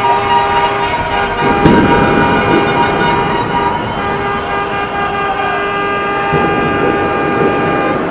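Street goal celebration: several horns sounding at once in long, steady overlapping tones, with bursts of crowd shouting about a second and a half in and again near the end.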